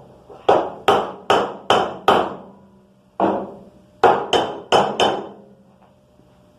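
Hammer blows on metal, each with a short ring: five quick strikes, a single strike, then four more in quick succession.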